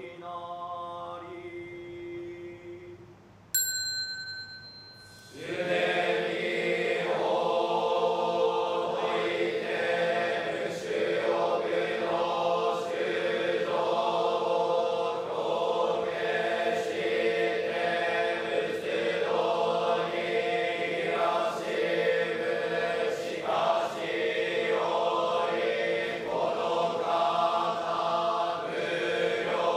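A lone voice intones, then a small bell is struck once about three and a half seconds in, its high ringing dying away over about a second. A couple of seconds in from that, a group of Buddhist monks begins chanting in unison, steady and full, through to the end.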